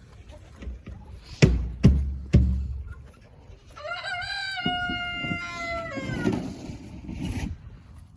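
Three loud thumps in quick succession, then a rooster crowing once, a long call of about two seconds that rises, holds and falls away at the end.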